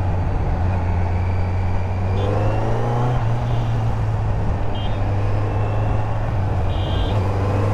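Kawasaki Z900's 948 cc inline-four engine running steadily under way, its pitch rising briefly about two to three seconds in. A few short high beeps sound over it.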